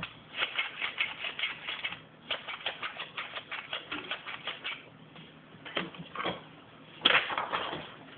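Sheet of paper being handled and folded, with runs of quick light crackles several times a second and a louder crackling rustle near the end.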